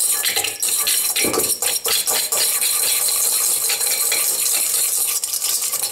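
Wire whisk scraping and clinking rapidly against a stainless steel mixing bowl as it works a dry, crumbly streusel mixture into crumbs.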